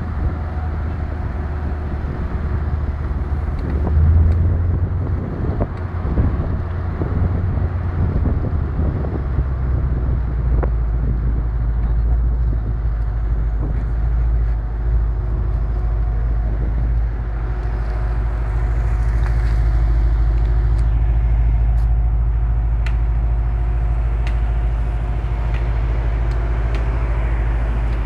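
Porsche Panamera 4S engine and exhaust as the car rolls slowly ahead: a steady deep rumble that swells briefly about four seconds in, picked up on a phone's microphone.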